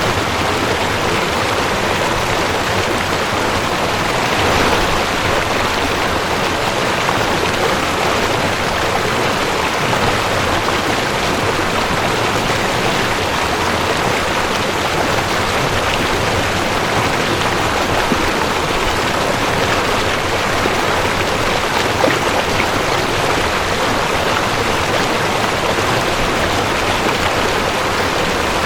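Mountain stream rushing over rocks: a steady, even wash of water.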